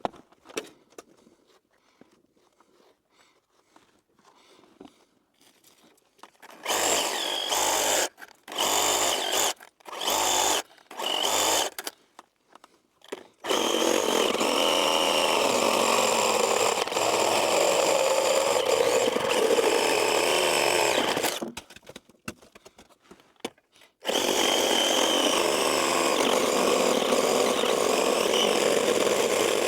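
Chainsaw revved in four short bursts, then running steadily at full throttle in a long cut of about eight seconds. It drops off, then runs steadily again from about two-thirds of the way in.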